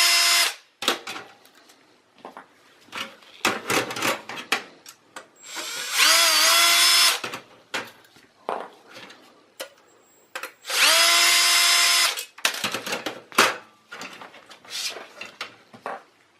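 Power drill unscrewing the screws that hold a computer's hard drive cage, in three short runs of about a second each, its motor whine rising and settling to a steady pitch. Clicks and knocks come between the runs.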